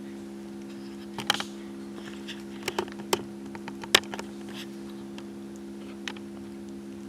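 A tone generator playing a steady 68 Hz tone through a small speaker, heard as a low, even hum of stacked overtones. Several sharp clicks and knocks from handling a camcorder sound a little past a second in, around three seconds, and once more loudly at about four seconds.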